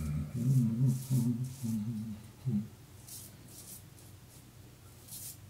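Leningrad-1 safety razor scraping stubble through shaving lather in short strokes, each a brief high scrape. A man hums a wordless tune for the first couple of seconds, then only the razor strokes remain.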